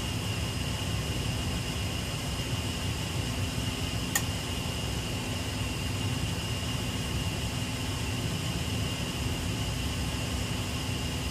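Steady fan-like mechanical hum with a faint high whine, broken once by a single sharp click about four seconds in.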